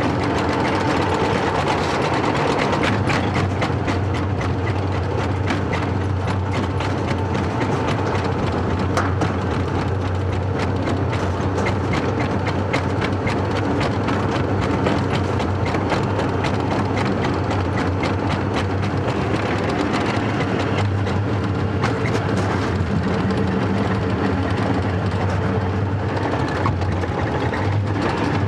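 Wiegand bobkart sledge running fast down a stainless-steel trough: a steady rolling rumble with many small rattles and knocks as it takes the curves.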